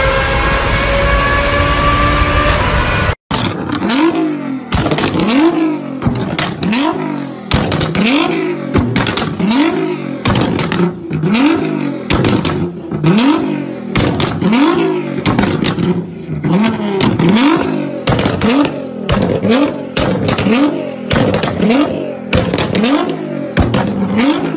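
Ferrari engine accelerating through a tunnel, its note climbing steadily, cut off abruptly about three seconds in. Then a Nissan GT-R's twin-turbo V6 is revved hard over and over at standstill, in quick blips about one and a half a second, each rising and falling in pitch, with sharp cracks between them.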